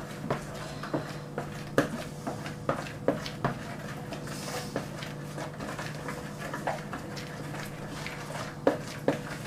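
Pancake batter being stirred by hand in a plastic mixing bowl: the utensil clicks and knocks against the bowl's sides in irregular taps a few times a second, over a steady low hum.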